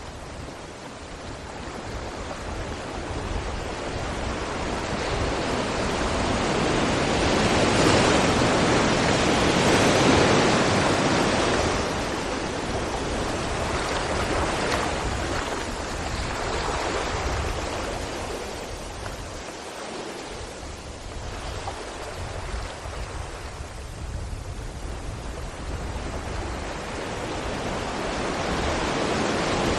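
Sea waves breaking against rocks: a continuous rushing surf that swells up twice, loudest about ten seconds in, eases off around twenty seconds, then builds again near the end.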